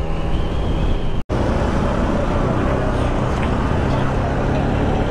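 Scooter and motorbike engines running in slow town traffic, with the LML Vespa NV's two-stroke engine close by. About a second in, the sound cuts out for an instant and then comes back.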